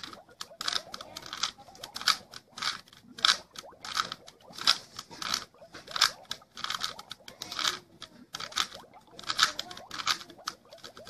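3x3 Rubik's cube being twisted over and over, the same up-and-over turns repeated: a quick, uneven run of plastic clicks and scrapes, about two turns a second.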